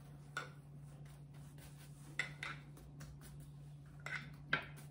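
Pastry brush tapping lightly against a small glass of apricot glaze as it is dipped and wiped, about five faint clinks spread through, over a steady low hum.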